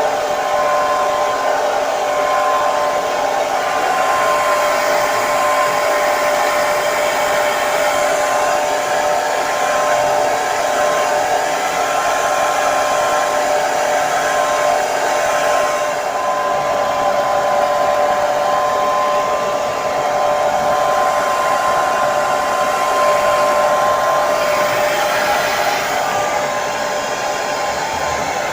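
Hair dryer running continuously: a steady blowing rush with a constant whine from the motor and fan.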